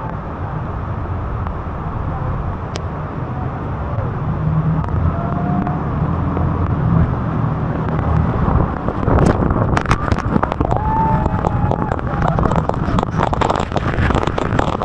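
A waterfall's steady roar mixed with a tour boat's engine, growing louder as the boat moves into the falls. From about nine seconds in, heavy spray and water strike the boat and the microphone with dense crackling splashes, and passengers let out short cries.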